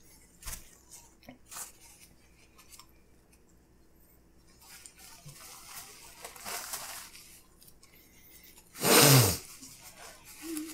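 Quiet eating at the table: small clicks, soft chewing and a stretch of paper napkin or wrapper rustling in the middle. About nine seconds in comes a sudden loud sputter as a person spits out a mouthful of food.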